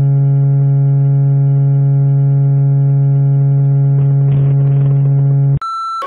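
Broadcast test-card tones. A steady low tone, rich in overtones, holds unchanged, then cuts off sharply about five and a half seconds in. A single higher pure tone follows: the test tone that goes with colour bars.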